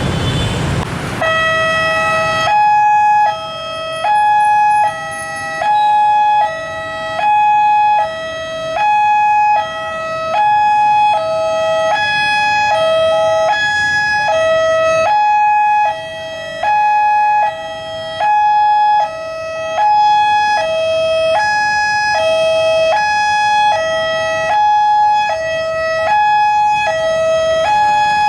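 Railway level-crossing warning alarm sounding: a loud electronic two-tone signal that alternates between a lower and a higher note about twice a second, starting just over a second in over road traffic, warning that a train is approaching and the barriers are closing.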